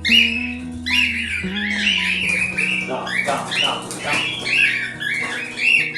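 Pet parrots squawking in quick, repeated short calls over background music with held, guitar-like notes.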